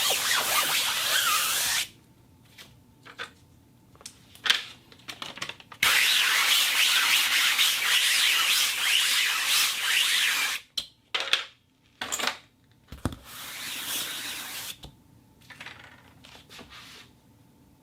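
Fabric being rubbed and rustled. A continuous rub opens, then a pause broken by a few short rustles. A second long rub runs about five seconds in the middle, followed by scattered short rustles and a softer rub.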